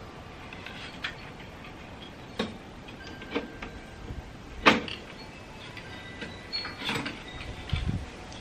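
Aluminium poles of a camp kitchen's light hanger clinking and knocking as they are fitted together and pushed into the table frame: a string of sharp metallic clicks, the loudest about halfway through, with a dull thump near the end.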